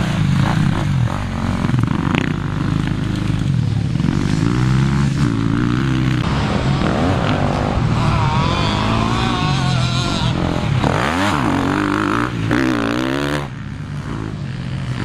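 Motocross dirt bike engines revving hard and backing off on the track, the pitch climbing and dropping again and again; quieter near the end.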